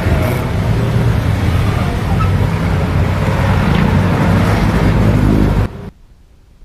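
Motorcycle engine running under way with wind and road noise, its pitch rising as it accelerates near the end. The sound cuts off abruptly about two-thirds of the way through, leaving only a faint hiss.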